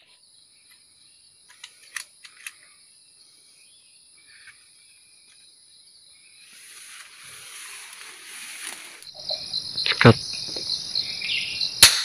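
Steady high-pitched buzzing of insects, with a sharp shot from an air rifle about ten seconds in and a second sharp crack just before the end.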